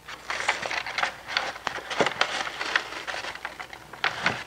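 Butter being sliced with a knife on butcher paper and its paper wrapper handled: a run of irregular soft paper rustles and light knife taps.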